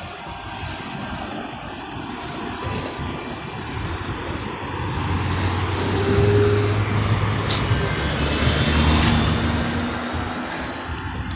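A motor vehicle passing on the road: engine and tyre noise swell over several seconds to a peak a little past the middle, then fade.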